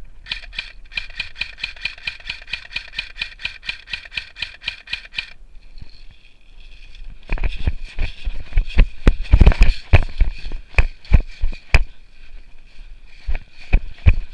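Airsoft electric gun firing a long full-auto burst, an even rattle of about nine shots a second lasting about five seconds. About seven seconds in, irregular heavy thumps and rustling close to the microphone take over as the loudest sound.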